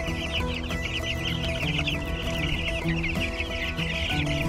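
A brooder full of young chicks peeping, many high cheeps overlapping without a break.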